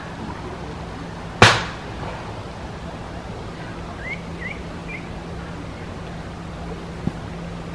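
Steady outdoor background hiss with a faint low hum, broken by one sharp, loud knock about a second and a half in. Around four to five seconds in come three quick rising bird chirps, and a small tick follows near the end.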